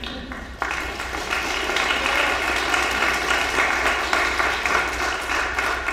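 Audience applauding, the clapping building about half a second in.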